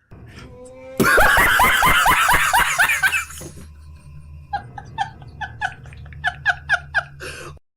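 Hearty laughter: a loud burst of rapid 'ha-ha-ha' pulses about a second in, then after a short pause a second, quieter run of rhythmic laughs that stops abruptly near the end.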